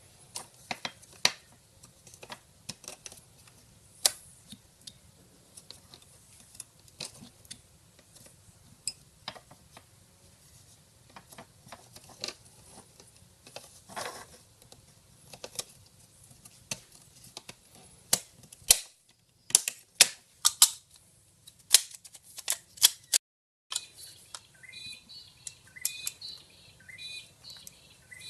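Sharp, irregular plastic clicks and taps from a Subaru Forester dual-cup drink holder assembly being handled and worked, with a quick run of louder clicks near the end. Birds chirp in the last few seconds.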